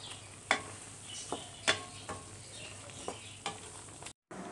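Wooden spoon stirring chicken and tomatoes in an aluminium karahi, knocking against the pan about five times, over a soft sizzle of the meat cooking in its own juices.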